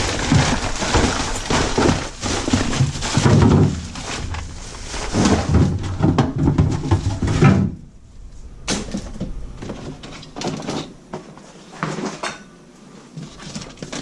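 Plastic trash bag rustling and crinkling as it is handled and doubled, mixed with knocks and clatter. About halfway through, the loud rustling stops abruptly, leaving scattered knocks and bumps.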